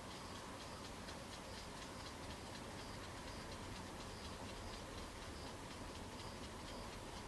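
A cricket chirping faintly, one short high chirp about every two-thirds of a second, over a steady background hiss.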